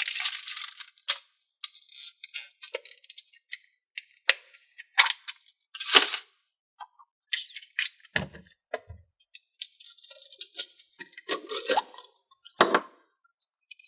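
Scattered light clicks, taps and small crackles at irregular intervals as a tin of thinking putty is opened and the putty is handled.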